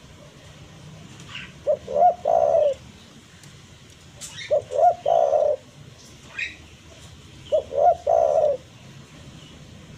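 Spotted dove cooing: three phrases about three seconds apart, each two short notes followed by a longer, throaty final note. Faint chirps of small birds sound between the phrases.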